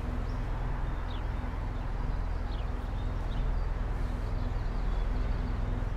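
Steady low outdoor background rumble, with a few brief, faint bird chirps.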